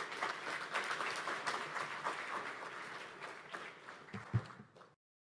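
Audience applauding, many hands clapping, thinning out near the end, with a low thump about four seconds in before the sound cuts off.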